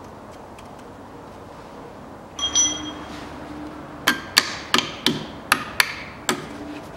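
Metal-on-metal tapping at a car's front wheel hub: a hand tool strikes the drive-shaft nut seven times in quick succession, about three taps a second. Two ringing metallic clinks come first, about halfway between the start and the taps.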